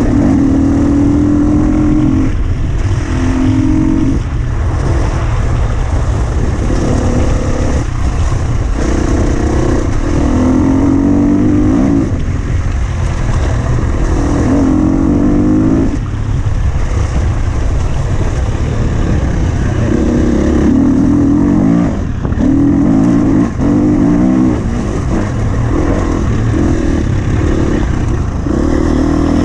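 Husqvarna FE 250's single-cylinder four-stroke engine being ridden hard off-road. The throttle opens and closes again and again, so the engine note climbs in short bursts every few seconds over a steady low rumble.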